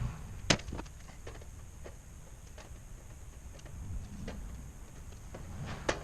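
Scattered sharp clicks and knocks, a loud one about half a second in and another near the end, over a low rumble.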